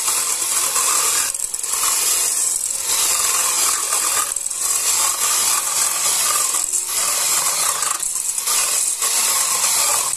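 Electric stick blender with a whisk attachment running, beating egg yolks in a stainless steel bowl: a steady motor whirr with the whisk rattling in the bowl, dipping briefly several times.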